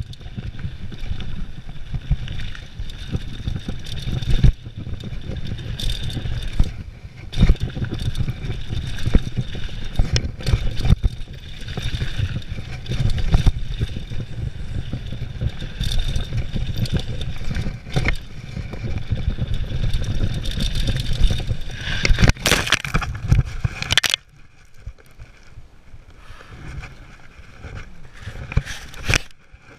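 Mountain bike running fast down a dirt trail: steady wind noise on the microphone with tyres and bike clattering over the ground. About 22 seconds in comes a crash, a burst of loud scraping impacts, and then it drops to quiet scuffling in the dirt.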